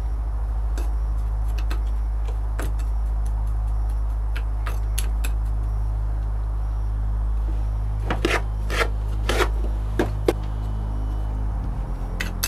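Metal spoons scooping and scraping casting sand into a mold frame, with sharp clicks where a spoon knocks the frame, several in quick succession about two-thirds of the way in. A steady low hum runs underneath throughout.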